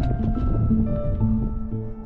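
Background music: a melody of short held notes moving in steps over a bass line.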